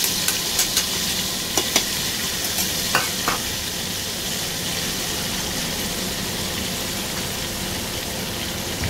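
Wet spice masala with ginger sizzling in hot oil in a cooking pan, with several sharp clicks of a spoon against the cookware in the first three seconds or so, then a steady sizzle.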